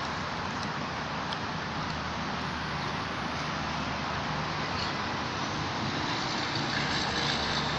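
Steady road traffic noise, a vehicle passing and getting a little louder near the end.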